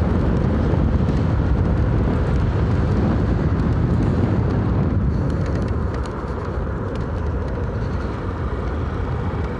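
Wind rushing and buffeting over the action camera's microphone on a moving Honda Bros 160 motorcycle, with its single-cylinder engine running underneath. The noise eases slightly about six seconds in.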